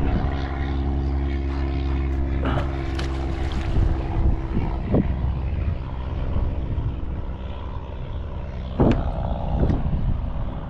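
A motor engine droning steadily at an even pitch, louder in the first half and fading off, with a few short thumps scattered through.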